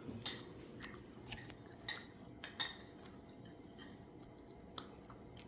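Faint, scattered small clicks and light taps, about half a dozen in all, over a quiet room background.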